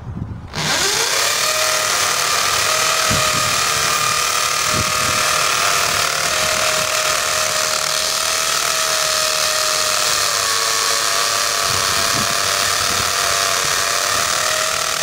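Corded electric drill boring a hole into a concrete wall with a masonry bit. The motor spins up about half a second in with a rising whine, then runs steadily under load, its pitch sagging slightly about ten seconds in.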